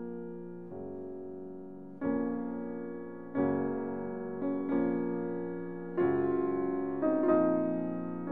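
Background instrumental music: slow chords, a new one struck about every second and a half, each ringing and fading.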